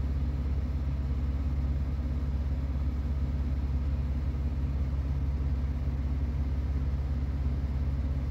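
An engine running steadily, a low even hum that holds one pitch with no revving.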